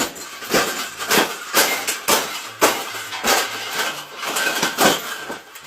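Repeated sharp clattering knocks on a metal birdcage, about two a second.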